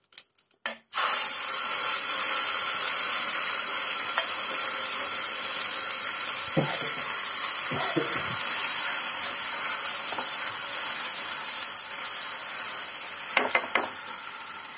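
Ground ridge gourd chutney paste hitting hot oil over tempered mustard seeds and curry leaves in a non-stick kadai. A sizzle starts suddenly about a second in and holds steady, slowly fading toward the end. A silicone spatula stirring the paste makes a few strokes over it.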